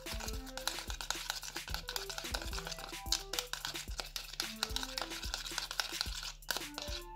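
Plastic fork stirring and scraping a thick mix of shower gel, water and paint in a plastic bowl: a rapid run of scrapes and squishes. Background music with a melody of short notes plays under it.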